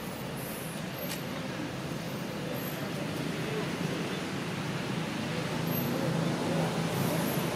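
Steady low outdoor background rumble, slowly growing louder, with a faint click about a second in.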